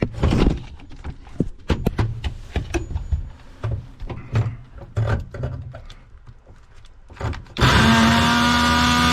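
Clicks and knocks of tools being handled, then about seven and a half seconds in a power tool starts up and runs steadily at a loud, even pitch, cutting through the rigid metal sink supply lines.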